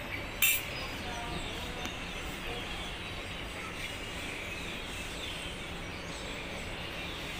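Many birds chirping and calling noisily from the trees over a steady outdoor background hum, with one sharp click about half a second in.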